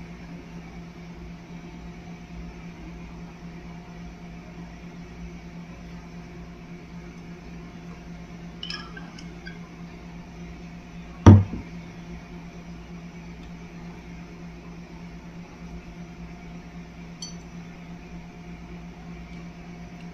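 Glass sauce bottle handled over a plate: a few faint clinks and one sharp knock about eleven seconds in, over a steady low hum.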